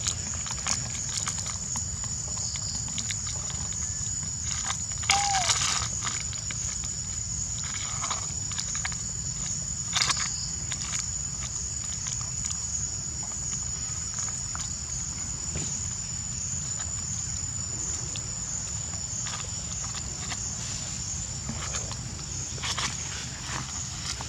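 Outdoor background noise: a steady low rumble and a constant high whine, with scattered clicks and rustles and one short squeak about five seconds in.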